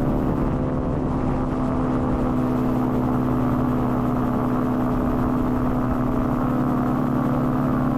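Gyroplane engine and propeller running steadily at even power, a constant drone with a strong low hum.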